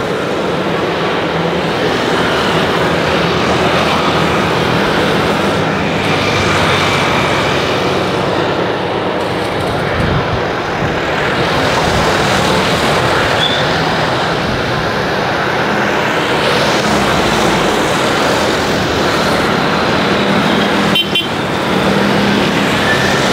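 Boeing 737-800 jet engines at takeoff power: a steady, loud roar with a low hum underneath.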